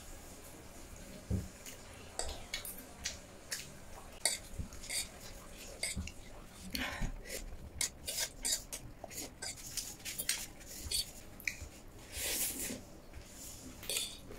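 Metal fork and spoon clinking and scraping on a ceramic plate of noodles, in many short irregular clicks, with a few longer hissy stretches of noodles being slurped between them.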